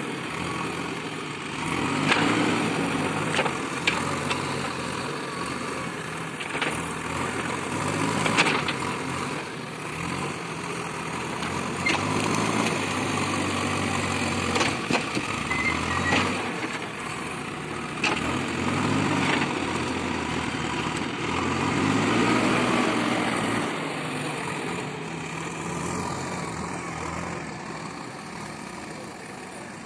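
Diesel engine of a JCB backhoe loader working, its revs rising and falling as the loader lifts logs with its front bucket, with a few sharp knocks along the way; it eases off near the end.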